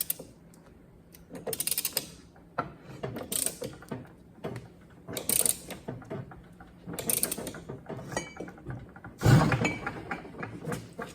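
Hand ratchet clicking in short runs about every two seconds as it snugs down the new 5th-gear retaining nut on an NV4500 transmission. The loudest run, near the end, comes with a knock.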